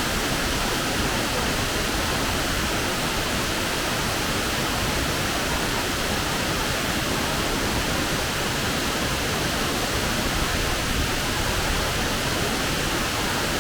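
Fukuroda Falls, a large tiered waterfall, making a steady, unbroken rush of falling water.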